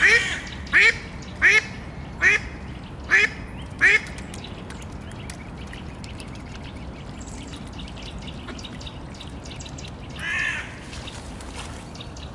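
Mallard quacking: a run of loud quacks about three-quarters of a second apart that stops about four seconds in, then faint clicking at the water's surface, and one more quack about ten seconds in.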